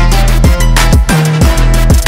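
Electronic music with a deep, sustained bass line under a steady kick-drum beat.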